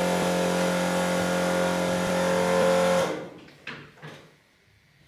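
An electric motor running with a steady hum, cutting off suddenly about three seconds in, followed by a few light clicks.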